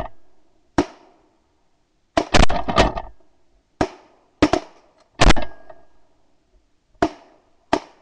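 Several hunters' shotguns firing in ragged volleys: about a dozen sharp shots, some in quick clusters of three or four, each trailing off briefly.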